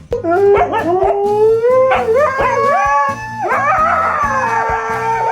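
A dog howling in long notes that slide up and down, some held for a second or so, over background music with a steady beat.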